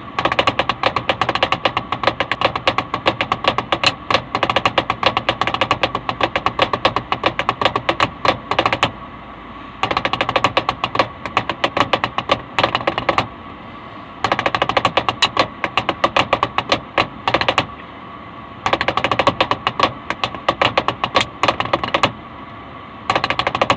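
Drumming in fast, dense strokes like a drum roll, coming in stretches of about three to nine seconds separated by pauses of about a second.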